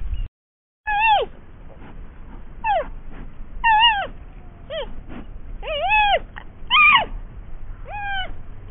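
Young giant pandas calling: about eight short, high cries roughly a second apart, most of them falling in pitch, over a low background rumble.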